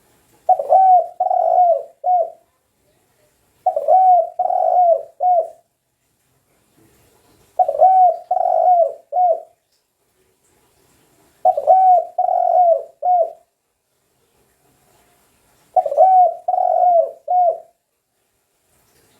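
Spotted dove (tekukur) cooing: five phrases of three or four coo notes, each about two seconds long, repeated roughly every four seconds with pauses between.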